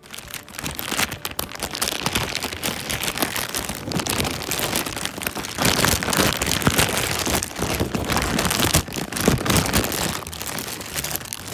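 Black plastic bag rustling and crinkling loudly as hands rummage in it, right against the microphone.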